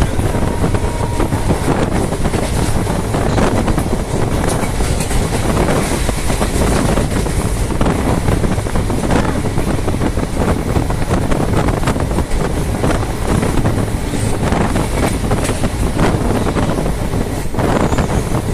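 Passenger train of the Krishna Express running at speed: a loud, steady rumble of wheels on the track with occasional sharp clicks over the rail joints.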